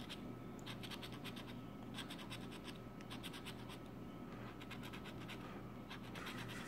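Blue scratching tool scraping the coating off a scratch-off lottery ticket: quick runs of short, faint scratching strokes.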